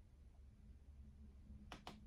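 Near silence with a low steady hum, then two quick clicks close together near the end as a phone tripod is handled.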